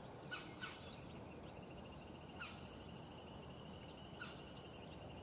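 Wild birds calling faintly: scattered short, high chirps, with a fast, even high trill starting about halfway in.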